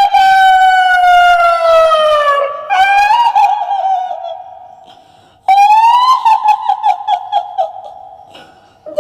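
A high-pitched female ghost voice in the style of the kuntilanak: a long wailing cry that slides slowly down, then breaks into a wavering, fading cackle. A second cry starts about halfway through, rises briefly, then wavers away.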